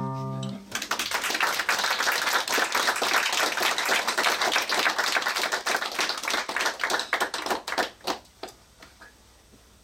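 Sung final note and guitar chord ending a song, then an audience applauding; the applause thins out and dies away about eight seconds in.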